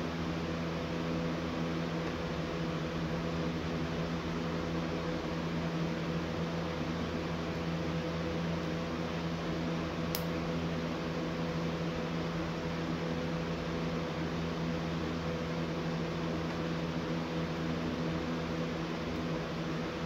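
A steady mechanical hum, a low drone with several constant tones under an even hiss. One sharp click about ten seconds in.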